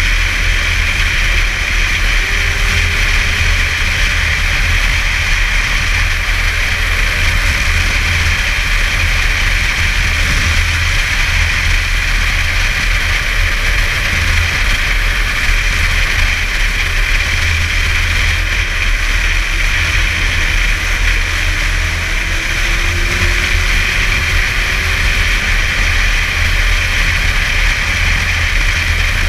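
Snowmobile running steadily along a snow trail: a steady low engine rumble with a hiss above it, at an even speed throughout.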